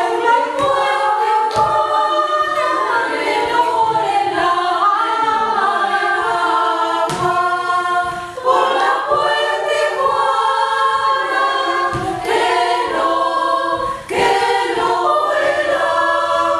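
Choir singing a cappella in several parts, holding chords, with brief breaks for breath about halfway through and again near the end.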